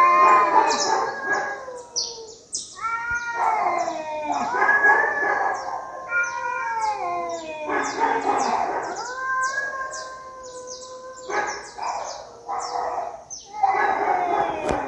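Fighting cats yowling: long, wavering, drawn-out howls that rise and fall in pitch, coming in bouts of a second or two with short breaks between them.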